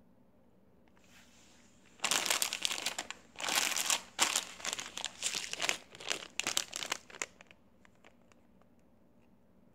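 A small plastic Doritos Nacho Cheese chip bag crinkling as it is handled, in a run of loud crackly bursts starting about two seconds in and stopping about seven seconds in.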